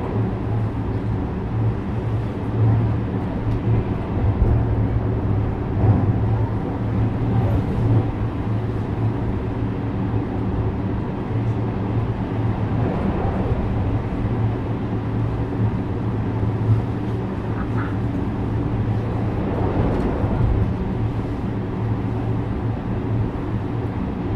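JR West 321 series electric train running at steady speed: a continuous low motor hum over wheel-on-rail rumble.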